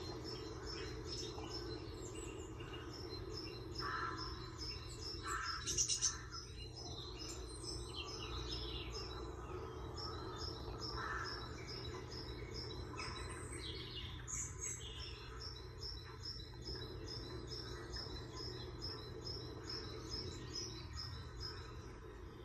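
Birds chirping, with one short high chirp repeated evenly about twice a second.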